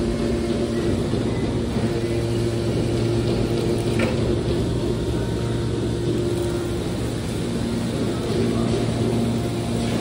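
Hydraulic power unit of a stainless steel scrap baler running with a steady hum while the ram pushes a compressed bale of stainless turnings out of the ejection door, with a single knock about four seconds in.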